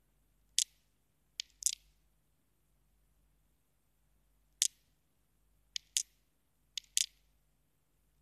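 About nine short, sharp clicks, irregularly spaced and several in quick pairs. No thunder or rain is heard.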